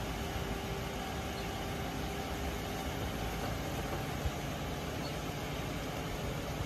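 A Ford Crown Victoria Police Interceptor's 4.6-litre V8 idling steadily, under an even hiss.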